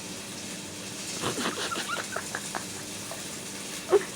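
Cats at a shared food bowl: a quick run of faint, short squeaky and clicky sounds for about a second and a half, then one brief, sharper sound near the end.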